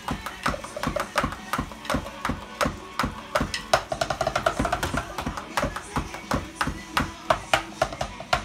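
Drumsticks striking the pads of an electronic drum kit in a fast, uneven stream of hits, with low thuds among them.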